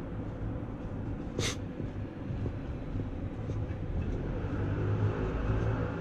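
City street ambience: a steady low rumble of distant traffic, with one short, sharp hiss about a second and a half in. Near the end a vehicle's engine sound grows slightly louder as it comes closer.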